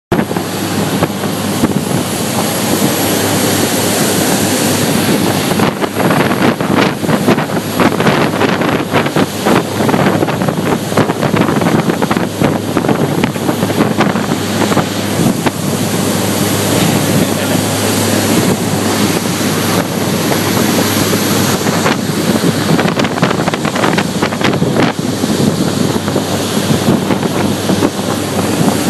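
Wind rushing and buffeting over the microphone aboard a motor yacht under way, with a steady low engine drone and rushing water beneath it.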